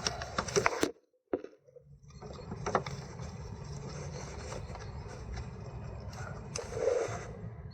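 Light clicks and knocks of gear-shift actuator parts being handled and turned by hand, over a steady low hum.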